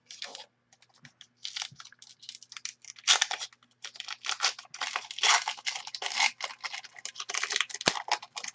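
Trading card pack wrapper crinkling and being torn open, with cards sliding against each other as they are handled: a run of irregular crackles, sparse at first and nearly continuous from about three seconds in.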